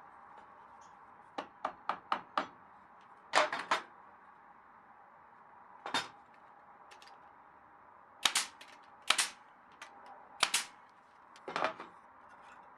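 Nails being driven into cedar planks: a series of sharp bangs in small clusters. A quick run of four comes about a second and a half in, followed by groups of two or three spread over the next ten seconds.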